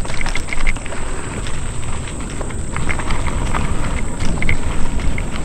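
Mountain bike rolling over a rooty dirt trail: steady low wind rumble on the microphone with scattered rattles and knocks from the bike.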